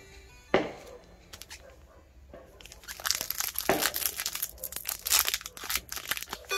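A sharp knock about half a second in, then from about three seconds in the steady crinkling and tearing of plastic wrapping being pulled off.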